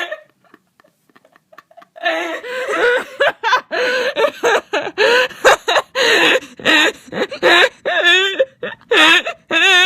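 A young woman laughing hard in a rapid run of short, high-pitched, wavering bursts, starting about two seconds in.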